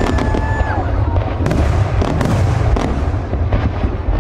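Fireworks display: aerial shells bursting in quick succession, a continuous rumble of booms laced with sharp bangs and crackles, with a high whistle in the first second.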